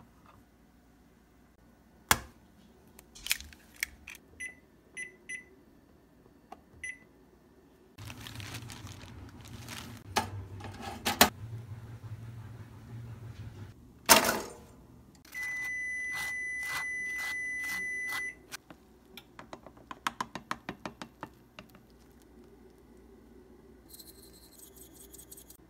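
A run of kitchen sounds. A few sharp taps come first, from an egg being handled and cracked. Then comes about six seconds of water bubbling in a pan, a loud knock of a metal slotted spoon, a steady electronic beep lasting about three seconds, a quick series of rattling clicks, and a soft grainy hiss near the end as a shaker seasons the egg.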